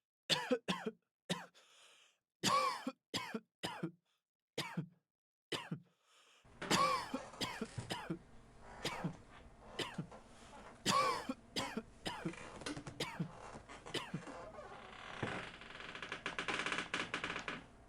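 People coughing and clearing their throats over and over, each cough short and separate. From about a third of the way in, the coughs continue over a steady room hum and background noise. A hiss swells near the end.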